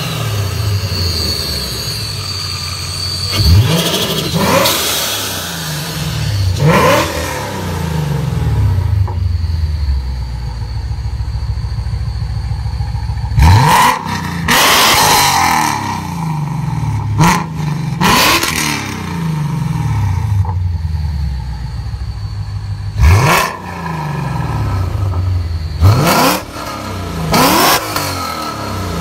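Supercharged 5.0-litre V8 of a 2015 Lexus RC F, fitted with aftermarket headers and an Armytrix exhaust, idling and being revved in repeated sharp throttle blips. Each blip rises quickly and falls back to idle.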